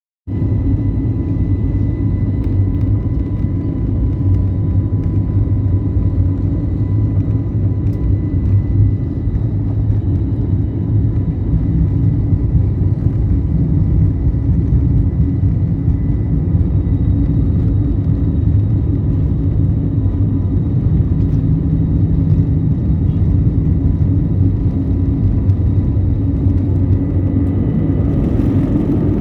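Airliner taking off: a loud, steady low rumble with faint steady high whine tones above it.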